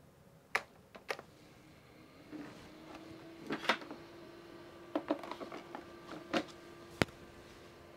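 NeXTstation Turbo Color powering up: a steady hum sets in a little over two seconds in and keeps on. Scattered clicks and knocks from handling on the desk around it, the sharpest about seven seconds in.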